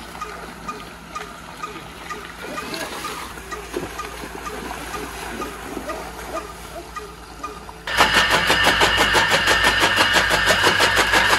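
Water rushing and splashing in an irrigation channel. About eight seconds in, a powered chaff cutter starts chopping green fodder stalks with a loud, even, rapid chop, about six strokes a second.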